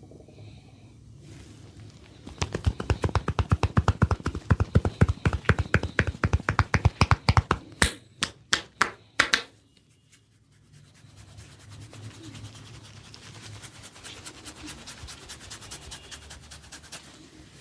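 Barber's hands striking a head in fast, even percussive massage strokes, about seven a second, ending in a few sharper, separate slaps. After a short pause, quieter rubbing of hands through oiled hair.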